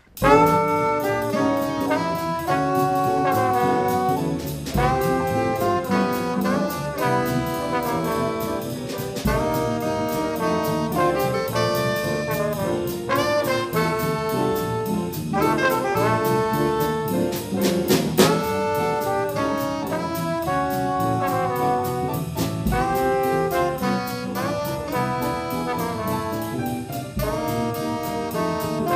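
A jazz combo playing up-tempo: trombone and alto saxophone sound the melody together over piano, electric guitar, bass and a drum kit. The whole band comes in at once right at the start.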